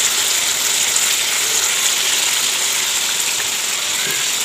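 Chicken and fresh curd sizzling in hot oil in a pan, a steady hiss as the yogurt's moisture meets the oil.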